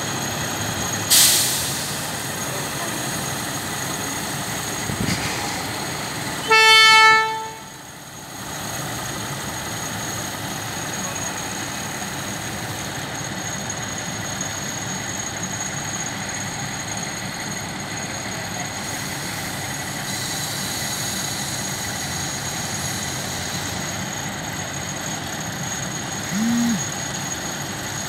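Thai diesel railcar train running at a platform with a steady rumble. About seven seconds in it sounds one short, loud horn blast. There is a short sharp burst of noise about a second in and a brief low toot near the end.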